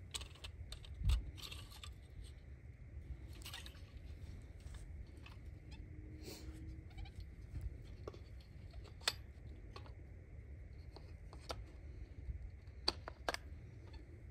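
A walnut-framed folding bucksaw being unfolded by hand: scattered clicks, knocks and light rattles of the wooden frame arms and the steel blade, with a low thump about a second in.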